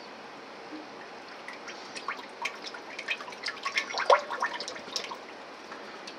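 Canola oil glugging and dripping as it is poured from a bottle into a pot, in irregular short gurgles and clicks that are thickest about four seconds in.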